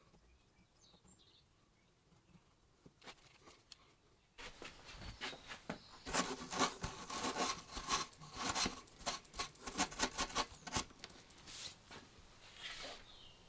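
Fingers rubbing quickly back and forth over a wax-filled corner joint of a wooden frame, a dry scratchy rubbing that starts about four seconds in, with a shorter rub near the end.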